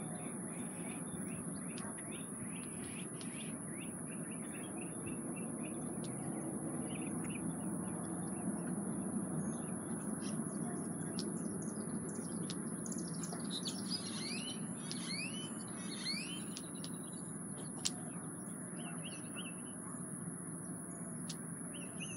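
Birds chirping over a steady outdoor background hum, with a cluster of quick rising chirps about two-thirds of the way through and a few short repeated calls near the end.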